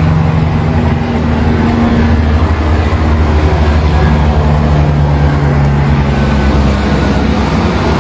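Engine of a heavy-equipment machine idling steadily: a continuous low hum whose pitch dips slightly after about a second.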